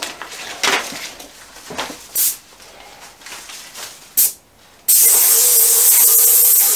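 Spray gun of a Graco 495 ST Max II PC Pro airless paint sprayer. After a few short sounds, the trigger is pulled about five seconds in and a loud steady hiss of paint spraying from the tip starts abruptly, with a steady mid-pitched tone beneath it. The sprayer's pressure has just been turned up to cure a tail in the spray fan.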